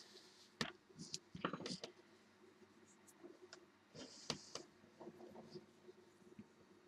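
Faint handling noise of a crochet hook and cotton yarn being picked up and the yarn wound over the fingers: a few soft clicks and a short rustle about four seconds in, over quiet room tone.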